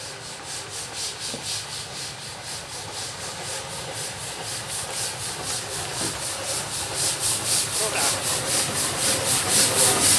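Ol12 steam tank locomotive's exhaust chuffing in an even rhythm of about four beats a second as it hauls its train, growing steadily louder as it approaches.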